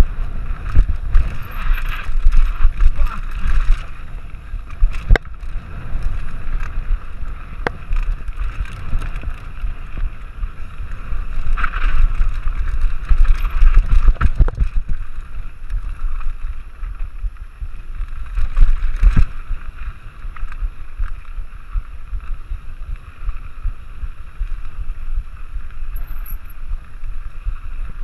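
Mountain bike descending a dirt singletrack at speed: wind buffeting the microphone over tyres rolling and skittering on dirt and gravel, with sharp knocks and rattles as the bike hits bumps, a few of them standing out.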